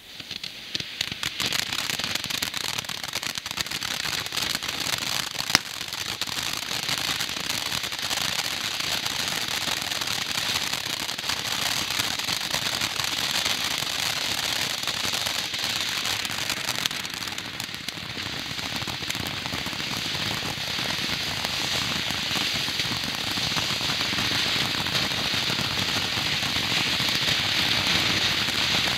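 Firework giving off a dense, continuous crackle like heavy rain on a roof. It builds up from nothing in the first second and then holds steady, with one sharper pop about five and a half seconds in.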